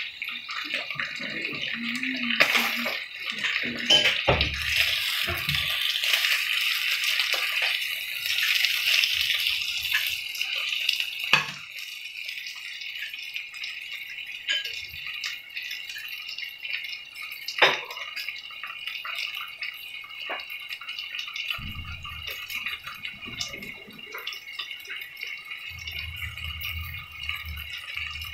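Striploin steak sizzling in hot oil in a frying pan: a steady hiss with a few sharp pops and spits of fat, louder for the first ten seconds or so and then settling down.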